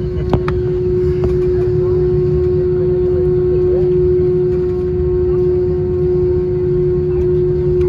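Airbus A320 cabin noise while taxiing: the engines at idle and the air systems give a low rumble with a steady hum. A couple of sharp clicks come just after the start.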